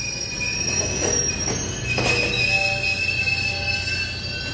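GO commuter train's wheels squealing against the rails, several thin high-pitched squeal tones wavering over a steady low rumble, with two knocks about one and two seconds in.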